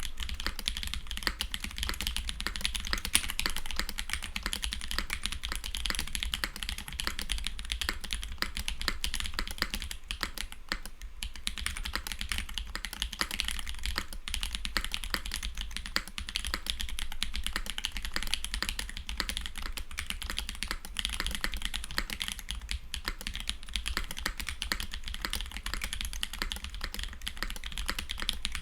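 Continuous typing on a Polaris custom keyboard fitted with Holy Trash Panda tactile mechanical switches: a steady stream of key clacks with a short lull about eleven seconds in.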